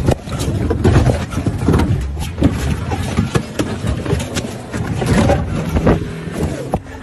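Loud, irregular rubbing and knocking of a phone's microphone as the phone is jostled against clothing and skin, over a vehicle engine running.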